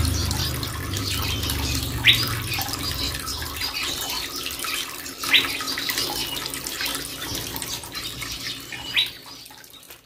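Steady trickling, dripping water, broken by three short, sharp, rising chirps spaced about three seconds apart; the sound fades out at the end.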